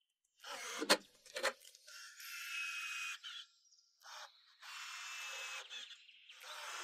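A sharp knock about a second in, then three separate stretches of hissing noise, each about a second long, from work on a wooden bed frame.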